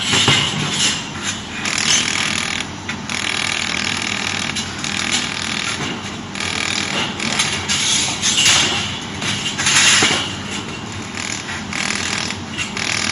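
Welding machine running: a steady hissing noise with louder surges every second or two.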